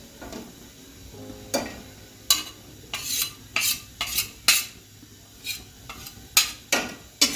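Grated coconut being stirred as it roasts in a pan: a dozen or so quick, uneven scrapes of the stirring utensil against the pan, starting about a second and a half in.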